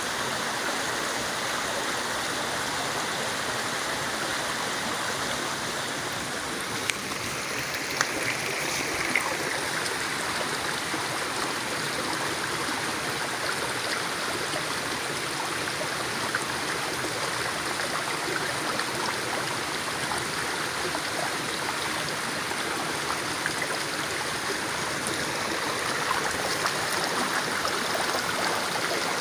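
Shallow rocky stream flowing steadily over stones, with a few faint brief knocks about seven to nine seconds in.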